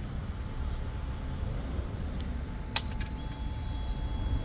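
Motorcycle ignition switched on: a sharp click, a couple of lighter clicks, then a faint steady high-pitched whine as the KTM Duke 390's system powers up, over a low background rumble.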